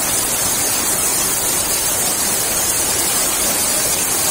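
Fast-flowing floodwater rushing down a flooded street: a steady, loud rush of water with no breaks.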